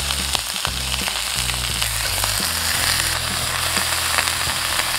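Bulalo beef shanks and vegetables sizzling on a hot cast-iron sizzling plate in melted margarine: a steady hiss with frequent small crackles.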